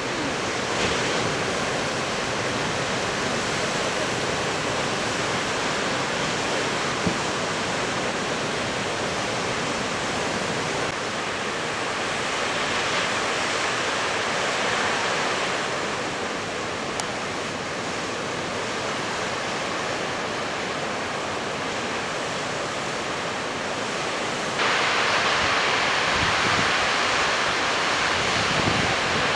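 Heavy storm surf breaking and churning against rocks, a steady rush of crashing water noise. About 25 seconds in, the noise suddenly jumps louder and brighter.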